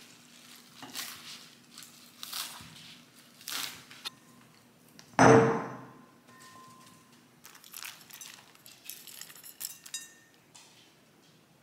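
Salad being made by hand: a knife cutting leafy greens on a wooden chopping board with short rustling strokes, and a loud knock with a brief ring about five seconds in. Lighter clicks and patter follow as vegetables and seeds go into a ceramic bowl.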